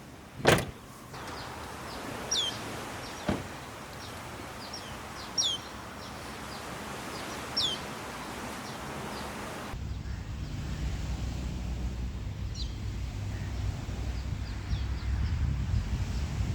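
Outdoor ambience with a bird repeating a short, downward-sliding chirp every couple of seconds over a steady hiss, and a sharp knock about half a second in with a lighter one about three seconds in. About ten seconds in the sound changes abruptly to a low rumble.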